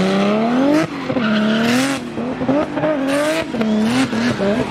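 Turbocharged BMW E30 Touring doing a burnout: the engine is revved up and down again and again, mixed with the hiss and squeal of spinning tyres.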